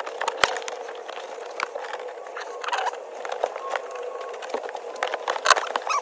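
Scratchy clicks and rubbing as a threaded plastic fastener is turned by hand into a carpeted car trunk liner, with the liner's felt and the fastener scraping and ticking irregularly.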